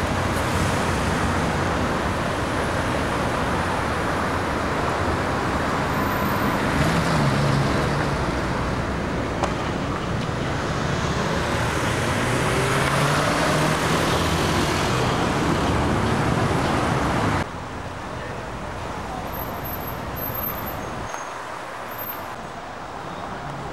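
Busy city road traffic: cars driving through a wide intersection, a steady wash of engine and tyre noise. About two-thirds of the way through it drops suddenly to a quieter, more distant traffic hum.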